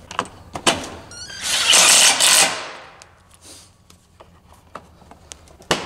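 Cordless driver running a 10 mm bolt into a plastic body panel: a few clicks, then the driver runs for about a second with a quick ticking as it starts. One sharp click comes near the end.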